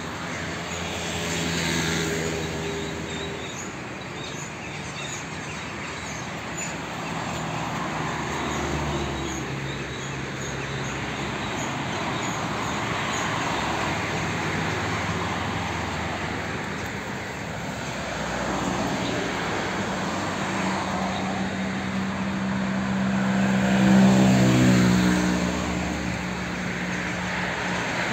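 Motor vehicle traffic running steadily, with one vehicle passing close about three-quarters of the way through and getting loudest there.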